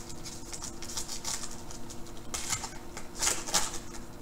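A plastic trading card pack wrapper crinkling as it is torn open by hand and the cards are slid out, in short crackling rustles, the loudest two about two and a half and three and a half seconds in.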